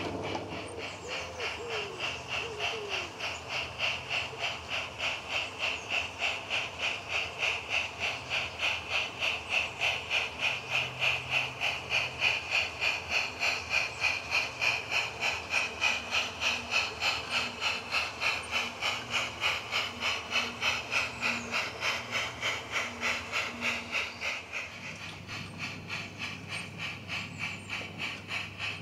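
Steam-locomotive chuffing from a battery-powered model narrow-gauge saddle-tank locomotive, a simulated steam sound, with an even beat of about four chuffs a second and a hiss. It softens a few seconds before the end.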